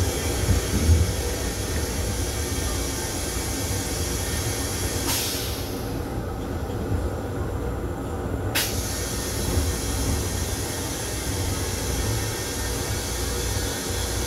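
Steady low rumble and hiss of a Metro-North M7 electric railcar running, heard inside its restroom. About five seconds in, a click cuts off the high hiss for some three and a half seconds, and a second click brings it back.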